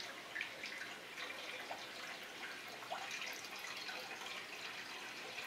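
Green coolant pouring steadily from a jug through a plastic funnel into a Ford 8N tractor's radiator, a continuous liquid trickle with small irregular splashes.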